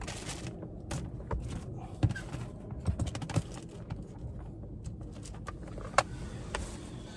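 Scattered light clicks, taps and knocks of hands rummaging around inside a truck's dash to retrieve a dropped screw, with two sharper knocks about two and six seconds in.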